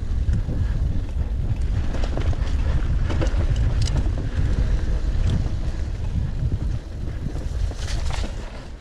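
Wind buffeting the microphone of a camera riding on a moving mountain bike, a steady low rumble, with frequent clicks and rattles from the bike rolling over rough trail. The rumble eases off near the end.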